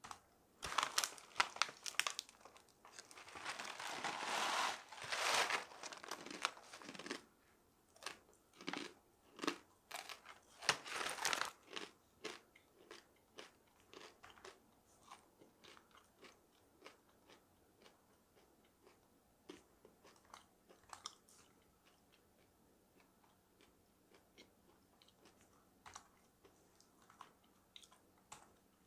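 Crunching and chewing of dried food, dense and loud for roughly the first twelve seconds, then slower, scattered crunches.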